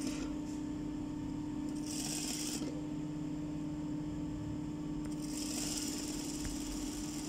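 Industrial sewing machine running steadily with a constant hum, stitching an invisible zipper to the fabric as a quick fixing seam. A soft hiss comes in twice, about two seconds in and again after about five seconds.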